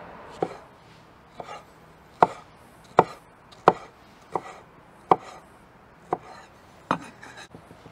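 A kitchen knife dicing tomato flesh on a cutting board: about ten separate chops, one roughly every three-quarters of a second, each a sharp knock of the blade on the board.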